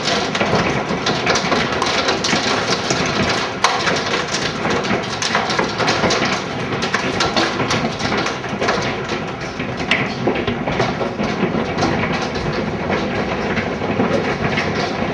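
Very large hail pounding on the house, a dense, continuous clatter of hard impacts with a few sharper hits standing out, such as one about three and a half seconds in.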